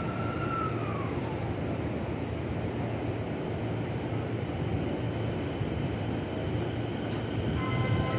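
Rinkai Line 70-000 series electric train standing at a platform with a steady low hum. A brief whistle-like tone rises and falls about a second in. Near the end the train starts to pull away, and several steady whining tones from its traction motors come in as the sound grows louder.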